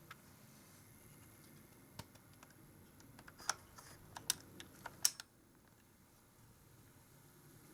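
Light, sharp clicks and taps: one about two seconds in, then a quick irregular cluster of about a dozen over the next two seconds, over a faint steady background.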